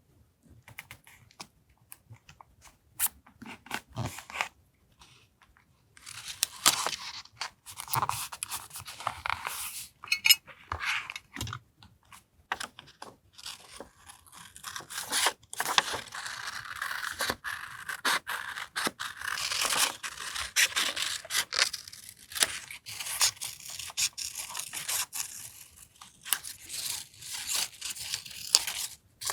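Paper being handled and torn for a journal collage. Sparse light taps and rustles open it, then about six seconds in it becomes dense, crisp scraping and tearing that carries on with short pauses.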